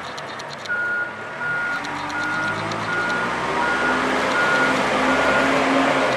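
Reversing alarm on a Manitou M30-4T rough-terrain forklift, starting about a second in and then beeping at one steady high pitch a little over once a second as the forklift backs up. Its diesel engine runs underneath, climbing in pitch as it is revved.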